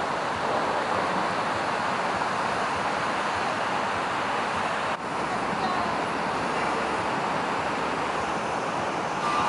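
Steady beach ambience: a continuous wash of outdoor noise, with a brief dip about halfway through.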